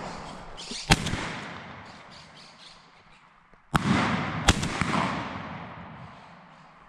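12-gauge shotgun firing three shots: one about a second in, then two in quick succession about three-quarters of a second apart near four seconds. Each shot trails off in a long echo.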